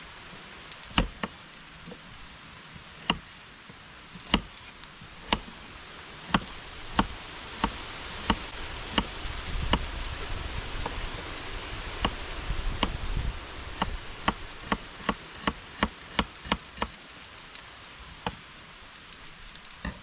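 Kitchen knife chopping vegetables on a wooden cutting board: single sharp knocks spaced a second or more apart, quickening to about two a second past the middle, over a steady outdoor hiss.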